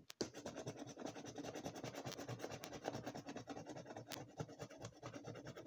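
A coin scratching the latex coating off a paper lottery scratchcard in a quick, continuous run of short rasping strokes.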